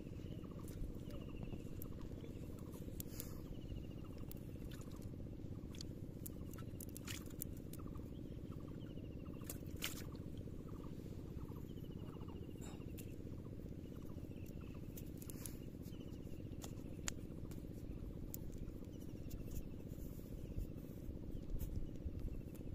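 Faint scattered ticks and rustles from hands working a wet nylon cast net and picking fish from it, over a steady low background noise. A short, high, falling chirp repeats every second or two.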